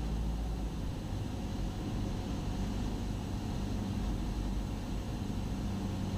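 Cessna 172SP's four-cylinder Lycoming IO-360 engine and propeller droning steadily in flight, heard inside the cabin.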